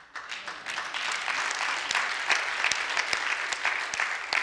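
A congregation breaks into applause just after the start and keeps clapping steadily.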